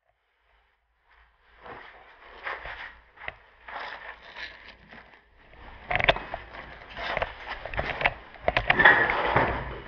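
Silence for about a second, then irregular scraping and rustling with scattered sharp knocks and clicks, louder near the end.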